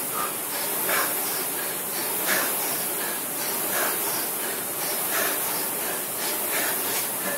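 Concept2 indoor rower's air-resistance flywheel running at speed, a steady whoosh that swells with each hard stroke, about one stroke every second and a half.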